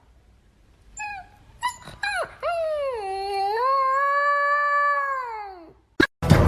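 A dog howling: a short yelp about a second in, a few brief cries, then one long howl that falls in pitch as it ends.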